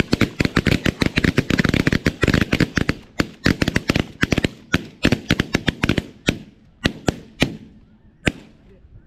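Volley of shotgun fire from several hunters: dozens of shots overlapping in quick succession for about six seconds, then thinning to a few single shots.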